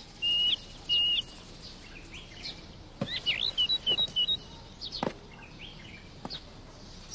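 Small songbirds chirping: two short, steady whistled notes in the first second, then a quick run of twittering notes about three seconds in. A few sharp ticks are scattered through.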